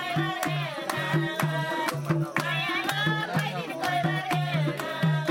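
Nepali dohori folk song: voices singing a wavering melody over a hand drum that keeps a steady beat of about three strokes a second, with sharp strikes on top.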